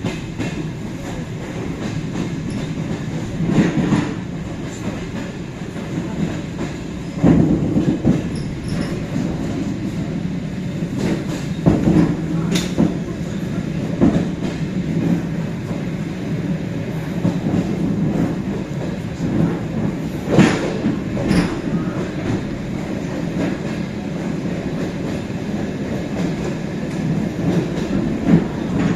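Suburban electric train running on the rails: a steady rumble of wheels and carriage, with a few sharp, irregular knocks as the wheels clatter over rail joints.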